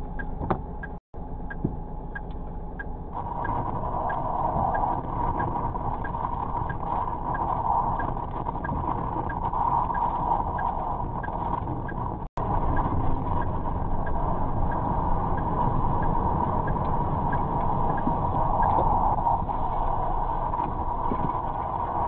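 Inside the cab of a tractor-trailer truck: its engine runs with a steady low rumble and a light tick repeating about twice a second. About three seconds in, a steady rushing noise joins. The sound drops out for an instant twice.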